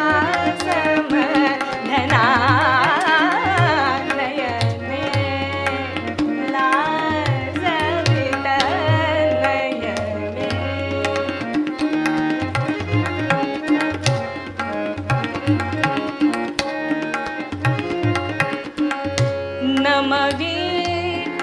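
Marathi natya sangeet: a woman singing with ornamented, wavering runs, accompanied by a stage organ holding steady notes and tabla keeping a regular rhythm.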